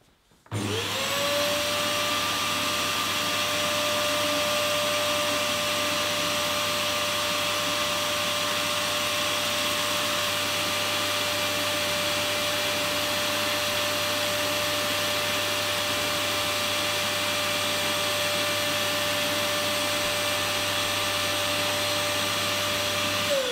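A canister vacuum cleaner switched on about half a second in and running steadily with a high whine over its rushing air, drawing suction through a cyclone winnower that pulls the light cocoa shells away from the nibs. It is switched off near the end, its whine falling in pitch as the motor spins down.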